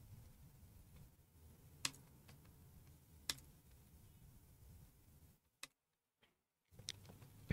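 A few separate computer keyboard keystrokes, sharp single clicks a second or more apart, over a faint low room hum.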